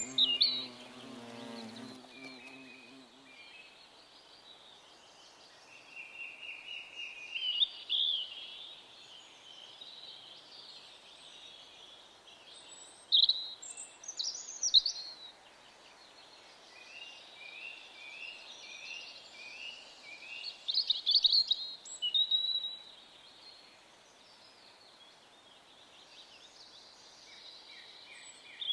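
Several woodland songbirds singing and chirping at once, with varied high trills and short phrases, loudest in a few bursts. A flying insect buzzes close by for the first couple of seconds.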